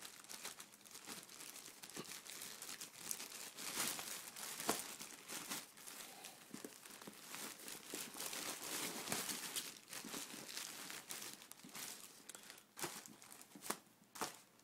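Packaging being handled and rustled: continuous crinkling and crackling with scattered small clicks and taps, dying away just before the end.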